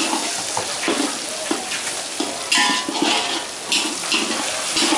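Whole boiled eggs frying in hot oil in a wok: a steady sizzle, with a couple of brief louder spurts of crackling in the middle.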